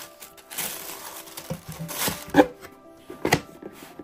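Tissue paper rustling as a football boot is handled, with two sharper knocks against the cardboard box, the louder about midway and another a second later.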